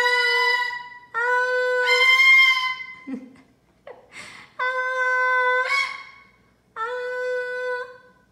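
Severe macaw singing a string of long held notes, each steady in pitch and about a second long, some lifting upward at the end. A few short rough squawks come between the notes around the middle.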